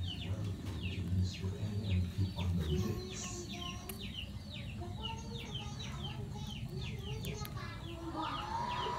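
Chicks peeping: a steady run of short, high, falling peeps, about two or three a second, with low clucking during the first three seconds.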